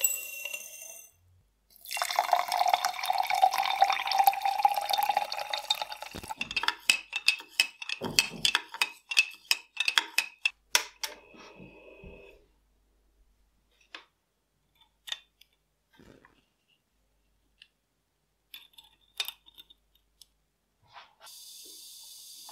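Water poured into a glass jar of coarse salt, then a spoon clicking rapidly against the glass as the brine is stirred. Near the end a steady fizzing hiss sets in as electrolysis starts bubbling gas off the spoon electrodes in the salt water.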